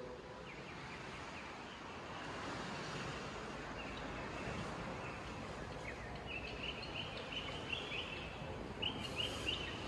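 Steady background hiss of ambient noise, with birds chirping: short, high chirps repeating from about four seconds in.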